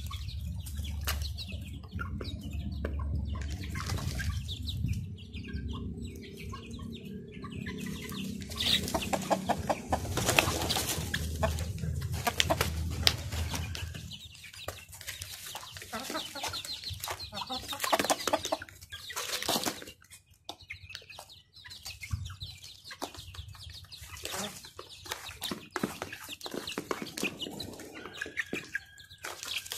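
Chickens and chicks feeding from a pile of mash on cardboard: many quick pecking taps, clucking and some wing flapping. A low rumble runs under the first half, then stops about halfway through.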